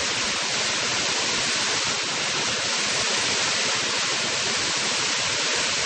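Small mountain waterfall running high with plenty of water, its falling water rushing steadily.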